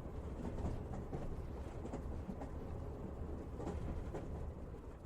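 Faint low rumble with scattered soft clicks, the quiet tail of a pop track after its last sung line, fading a little near the end.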